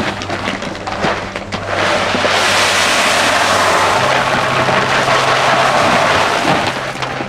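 Dry whole field peas pouring from a paper sack into an empty plastic trash can: a steady rushing hiss of grain starts about two seconds in and tails off near the end, after paper-sack rustling and crinkling. Background music with low held notes plays underneath.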